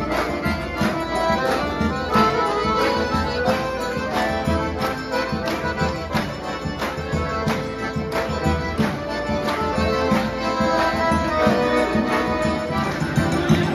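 A group of accordions playing a traditional tune together, several held notes moving over a steady, regular beat.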